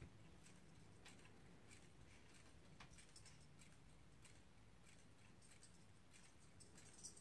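Near silence: room tone, with a few faint ticks scattered through it.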